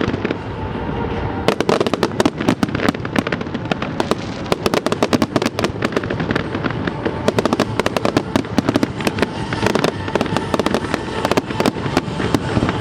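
Fireworks display: a dense, continuous barrage of bangs and crackling from aerial shells and effects, many reports a second. It thins briefly in the first second or so, then goes on without a break.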